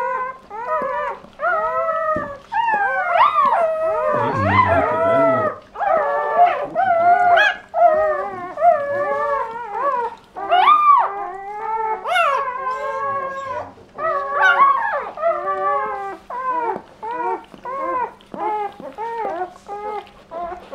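Newborn Doberman puppies crying: a rapid run of high, wavering squeals, several a second, with only brief pauses, while their mother licks them.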